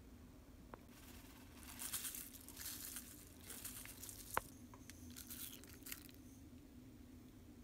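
Faint crinkly rustling in several bursts as seasonings are added to a bowl of salad vegetables, with one sharp click about four and a half seconds in, over a low steady hum.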